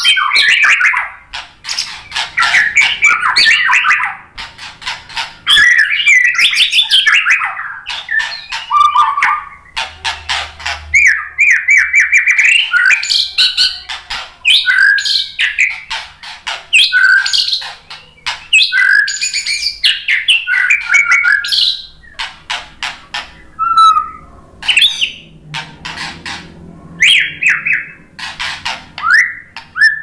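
White-rumped shama singing a long, varied song: clear whistled phrases alternating with fast rattling note series and harsher calls, nearly without pause, with a short lull a little past two-thirds of the way through.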